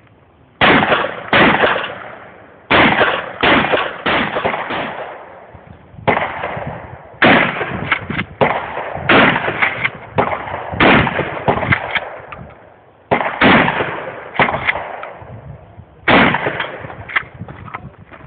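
A shotgun firing a long string of shots. Some come about a second apart, with pauses of a second or two between groups, and each report has a short echoing tail.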